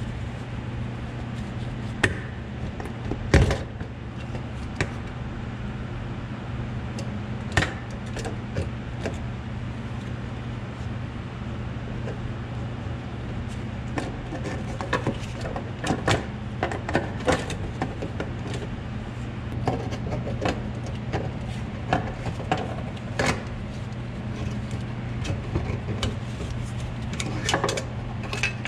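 Scattered metal clicks, knocks and scrapes as a stubborn fuel level sending unit and its wire float arm are worked out through the opening of a classic Mustang fuel tank, with the sharpest knock about three seconds in. A steady low hum runs underneath.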